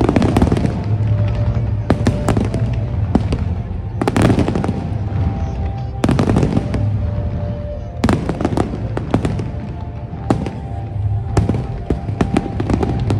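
Aerial fireworks bursting one after another, with a loud bang about every two seconds and crackling between them, over music with a steady bass.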